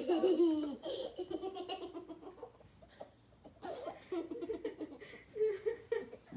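A young girl laughing in high-pitched bursts, loudest at the start, with a second round of laughter about four seconds in.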